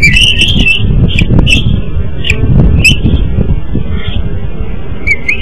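Bald eagle calling: a wavering high call at the start, then a string of short, high chirps every second or so, over a loud low rumble.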